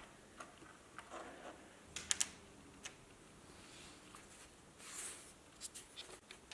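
Faint, scattered clicks and taps of plastic toy vehicles being handled, with a quick cluster of three about two seconds in and a few more near the end.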